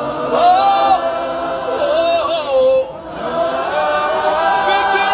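A group of voices singing a worship chorus together in long held phrases, with a short break about three seconds in.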